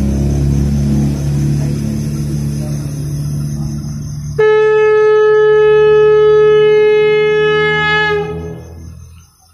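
Conch shell (sangu) blown in one long, steady, loud note of about four seconds. It starts abruptly about halfway in and tails off with a slight drop in pitch. Before it there is a low rumble.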